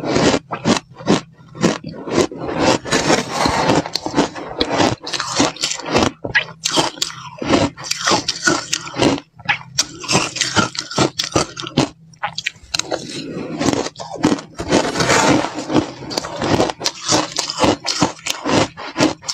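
Close-up crunching and chewing of slushy, syrup-soaked crushed ice, a rapid run of wet crunches that keeps on with short pauses.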